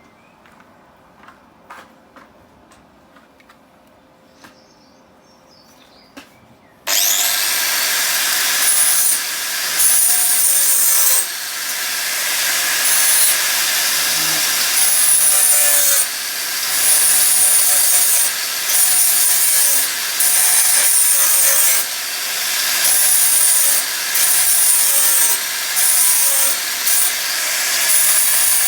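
A few faint handling knocks, then about seven seconds in a power grinder starts on the steel fender panel and runs to the end. Its high whine drops slightly and the level swells each time it is pressed into the metal, easing off every second or two.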